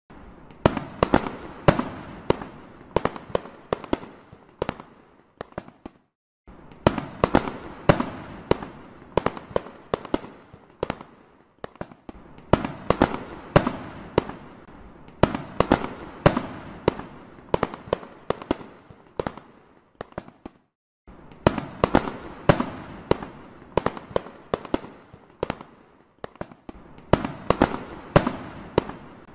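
Fireworks display: shells bursting in quick succession, each a sharp bang with an echoing tail, often several overlapping. The sound drops out briefly twice, about six seconds in and about twenty seconds in.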